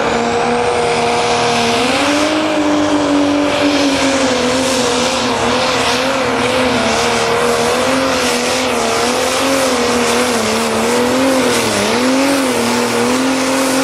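Turbocharged diesel engine of a Pro Stock pulling tractor running flat out under load, its pitch climbing about two seconds in and then wavering up and down, with a faint high whistle above it. The engine sound cuts off suddenly at the end.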